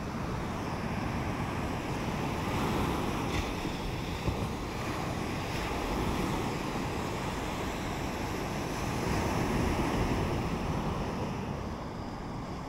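Steady wash of sea waves on the shore, swelling and easing slowly, with wind on the microphone.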